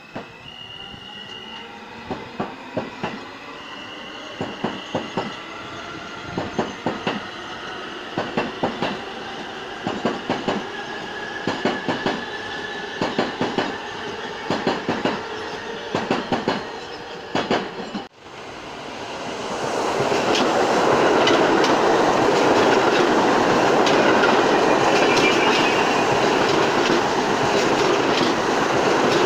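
New York City subway train on the far track, its wheels clicking over rail joints in quick groups about once a second while its traction motors whine up in pitch. After a brief dropout about 18 seconds in, a second train runs past close by on the near track with a loud, steady rush of wheel noise and a short wheel squeal.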